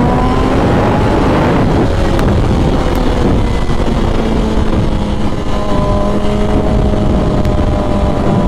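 2001 Suzuki GSX-R1000's inline-four engine pulling hard as it climbs in pitch, then after about a second and a half settling into a steady highway cruise. Heavy wind rush on the helmet microphone runs under it.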